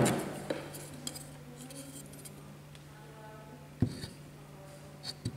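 Hard plastic water-pump impeller knocking against a tabletop as it is handled: one sharp knock at the start, then two lighter knocks about four and five seconds in.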